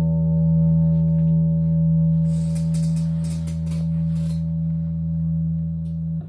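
A steady, sustained low musical drone that holds at one level without fading, with some scratchy clicks in the middle; it cuts off abruptly near the end.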